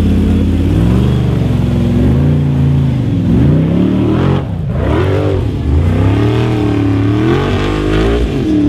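Formula Offroad buggy engine revving hard, its pitch rising and falling again and again under heavy throttle on a steep sand hill climb. There is a short drop about four and a half seconds in, then it climbs again.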